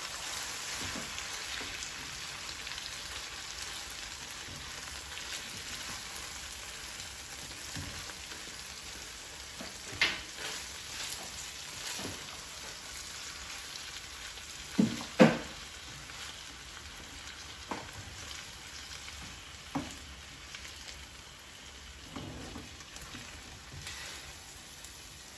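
Pork and tofu sisig frying with a steady sizzle in a nonstick wok while a slotted spatula stirs it. A few sharp knocks of the spatula against the pan come through, the loudest a quick double knock a little past halfway.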